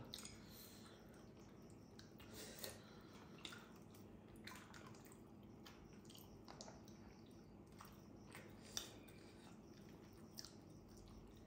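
Very faint chewing and eating sounds, with scattered soft clicks and squishes as grilled fish is picked apart by hand and with chopsticks and eaten.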